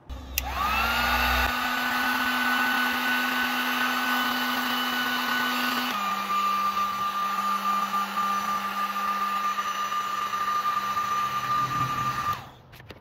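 Electric heat gun running: its fan motor spins up with a rising whine, then blows steadily, and shuts off about a second before the end. About halfway through the whine steps down to a slightly lower pitch.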